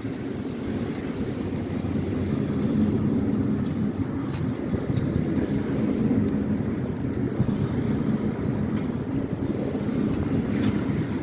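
Steady low vehicle rumble with a faint, even drone and a few faint ticks.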